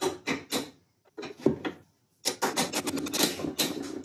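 Hammer tapping on a pair of vise grips to drive a greased lower bushing onto a steering shaft. A few separate taps, a short pause, then quick light taps about five a second from about two seconds in.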